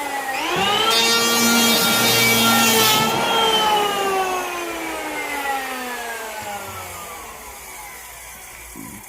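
A handheld power tool's motor whine rises quickly as it speeds up, then holds steady for about two seconds under a loud rasping hiss as it cuts or grinds into pine. The hiss stops about three seconds in, and the motor winds down slowly, its whine falling in pitch and fading.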